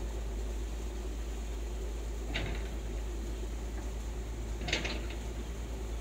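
Steady rush of a muddy stream flowing over rocks, with a constant deep rumble underneath. Two brief sharp sounds stand out, about two seconds in and again near five seconds, the second the louder.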